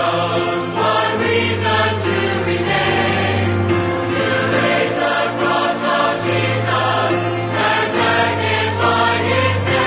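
Choral music: a choir singing over a steady bass.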